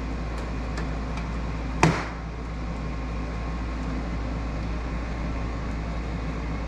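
C8 Corvette front bumper grille insert being pulled out of its opening by hand: one sharp click about two seconds in, a few faint ticks before it, over a steady low hum.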